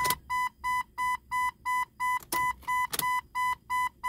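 Jeep XJ's dashboard warning chime beeping steadily, about three single-pitched beeps a second, with a few sharp clicks from the ignition key being cycled to prime the fuel system.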